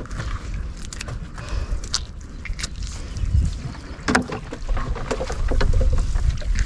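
Wet gill net being pulled in and handled by hand, with scattered splashes and knocks of water and net, over a low wind rumble on the microphone.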